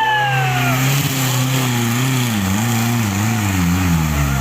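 Off-road 4x4 vehicle's engine running under load, its revs rising and falling over and over. A high tone slides down and fades during the first second.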